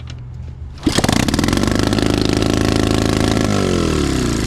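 Pit bike engine kick-started, catching about a second in and running at high revs with the throttle stuck wide open from a carburetor problem. The revs fall off near the end.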